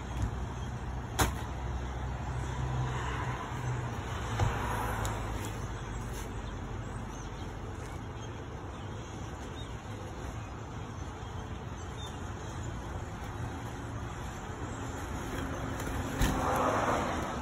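Parking-lot ambience: a steady low rumble of cars and road traffic, with a few sharp knocks, about a second in, at about four seconds, and near the end.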